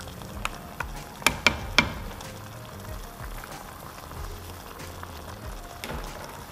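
Green mussels in their shells knocking against each other and the pot as a spatula stirs them, a few sharp clacks in the first two seconds, over the steady sizzle of the pot cooking.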